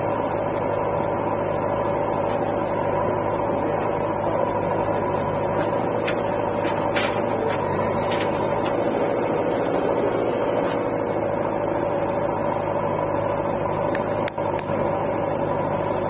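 Diesel engines of a JCB 3DX backhoe loader and a farm tractor running steadily, with a few faint clicks about six to eight seconds in.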